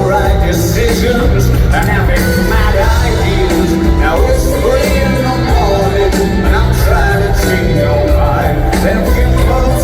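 Rock song with a male voice singing over steady bass, drums and guitar.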